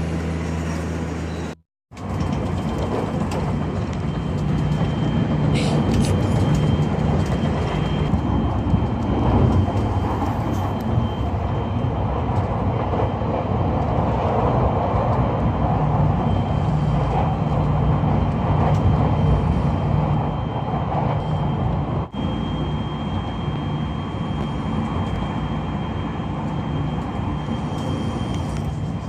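Steady vehicle cabin drone, a continuous low rumble and hiss of a running vehicle heard from inside. It drops out completely for a moment about two seconds in, with a short dip again later.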